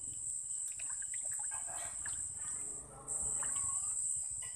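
Insects trilling steadily at a high pitch, breaking off for a moment about three seconds in, with faint voices underneath.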